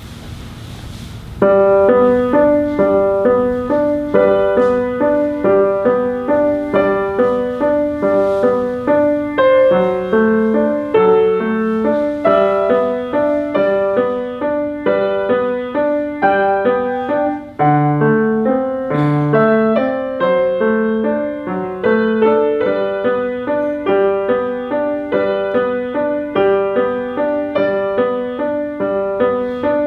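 Piano playing, starting about a second and a half in: a steady, evenly paced broken-chord pattern of separate notes that runs on without a break.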